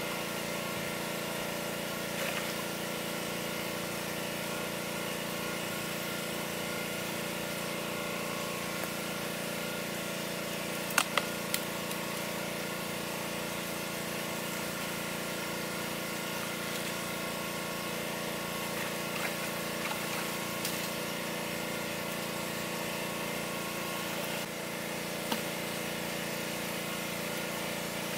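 Small engine-driven water pump running steadily, a constant hum with several steady tones, pumping the water out of the ditch. A few sharp clicks about eleven seconds in.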